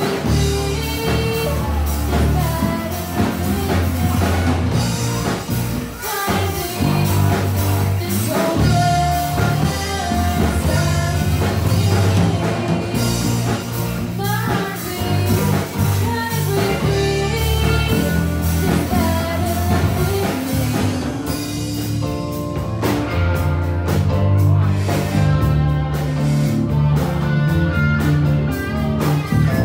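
Live rock band playing: electric bass, electric guitar and drum kit under a female lead vocal. In the last third a fast, even cymbal pattern comes through on top.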